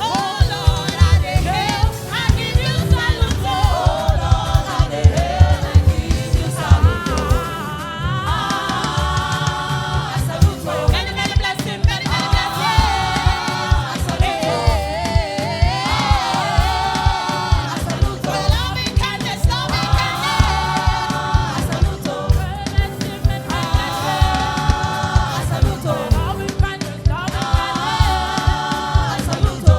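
Church choir singing a gospel song, backed by a band with a steady beat.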